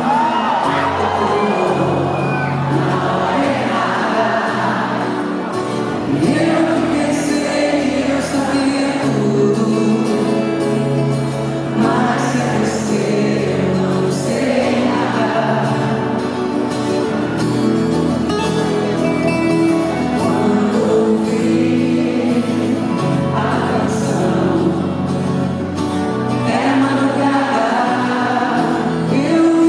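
Live concert performance: a woman sings a Brazilian song over band accompaniment with a steady bass line.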